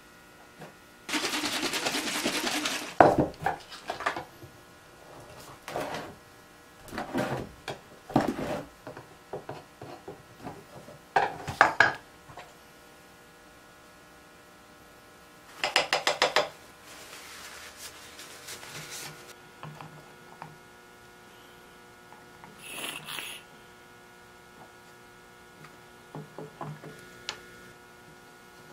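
Woodworking handling sounds: clatter and knocks of wooden dowels, tools and a small can being picked up and set down. There are two short, louder scraping bursts, one about a second in and a quick run of strokes about midway, and light tapping as dowels are pushed into holes near the end.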